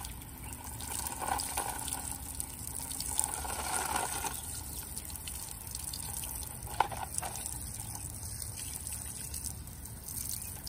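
A stream of water pouring and splashing onto an animal inside a wire-mesh live trap and onto the trap floor beneath it, with one sharp tap about two-thirds of the way through.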